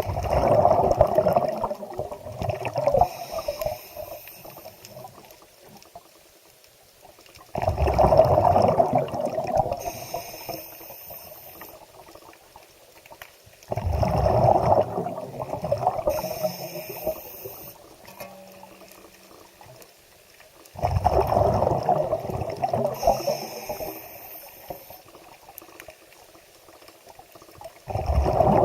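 Water gurgling and sloshing in surges about every seven seconds, each starting suddenly and fading over a few seconds.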